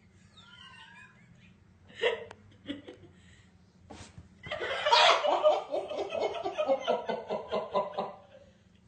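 A person laughing hard, a long run of quick pulses, about four or five a second, from about halfway in, after a few sharp clicks.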